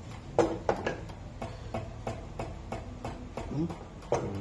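Injector test rig ticking in a steady rhythm of about two to three clicks a second, with a couple of louder knocks about half a second in and near the end.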